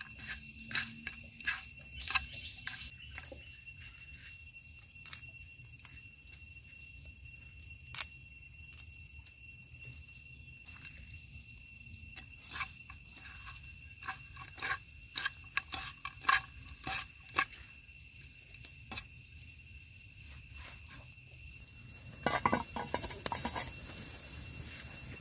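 Scattered light clicks and clinks of hands handling fried tarantulas on a cast-iron plate, over a faint steady high-pitched whine. A short rush of noise comes near the end.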